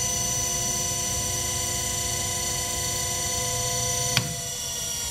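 Harig 612 surface grinder's 3 HP spindle motor running steadily, a hum with several fixed whining tones. A single sharp click about four seconds in, after which one of the lower tones stops.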